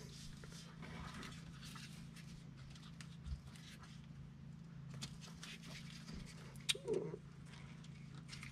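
Faint handling of a plastic fog light housing and its wiring connector: light rustling and a few small clicks over a steady low hum.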